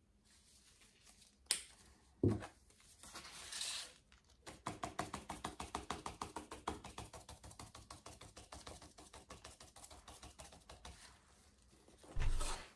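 Two sharp knocks from things set down on a workbench, then a paintbrush dabbing in paint on a paper plate: a quick run of light taps, about six a second, fading out over several seconds.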